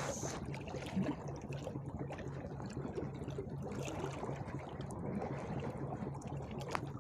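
Seawater washing and lapping against shoreline rocks, with the low pulsing hum of a boat engine under it. A single click comes near the end.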